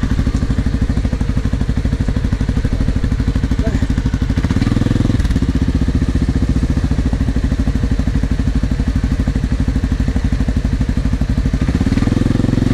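Quad (ATV) engine idling steadily with an even pulsing beat. The engine note briefly changes about four and a half seconds in, and again near the end.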